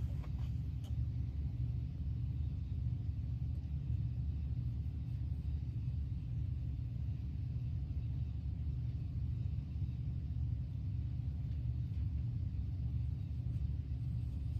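Steady low machine rumble, with a couple of faint light ticks in the first second.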